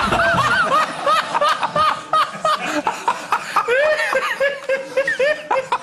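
People laughing hard in quick, high-pitched bursts, several laughs a second without a break.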